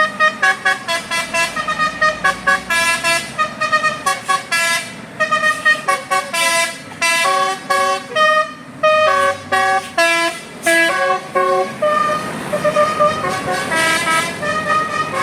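A bus's telolet basuri musical air horn playing a quick melody of short stepped notes, moving into longer held notes near the end.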